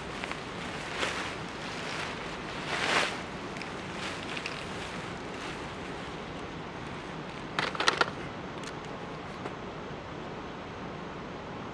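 Rustling of an airblown inflatable's thin fabric and its power cord as they are handled, over a steady background hiss, with a quick cluster of sharp clicks about eight seconds in.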